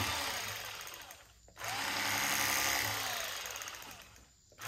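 Electric fillet knife running in short bursts as it cuts through a bowfin fillet: one run stops about a second and a half in, it starts again almost at once and runs until shortly before the end, then starts a third time.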